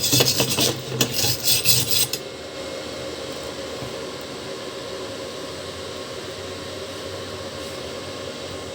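Electric arc of a ZX7-255 inverter stick welder crackling for about two seconds, then breaking off suddenly; a steady quieter hum carries on afterwards.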